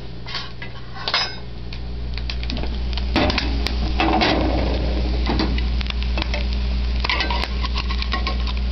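A utensil scraping and clinking against a frying pan in several short bouts as a fried egg is lifted out of it.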